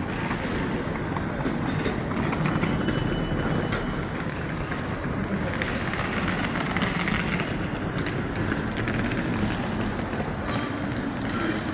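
Railway station concourse ambience: a steady rumbling wash of noise with a few faint clicks scattered through it.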